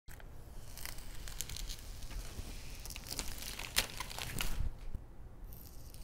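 Quiet crinkling and rustling, broken by scattered small clicks and taps, the sharpest a little before the four-second mark.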